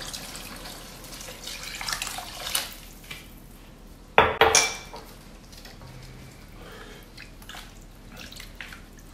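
Water poured into a steel wok of vegetables trickles and tails off. About four seconds in comes one sharp, ringing clatter of kitchenware, then a spatula scrapes softly as it stirs the watery sauce in the wok.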